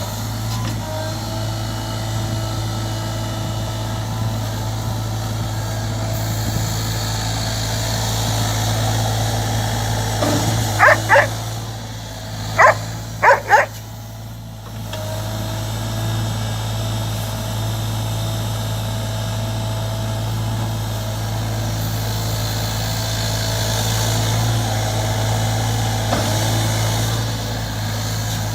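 Sany mini excavator's engine running steadily, with a dog barking about five times in quick succession near the middle.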